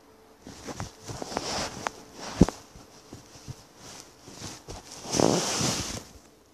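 Handling noise from a phone held in the hand: irregular rubbing and small knocks against the microphone as the phone is moved, with one sharp knock about two and a half seconds in and a longer, louder rub near the end.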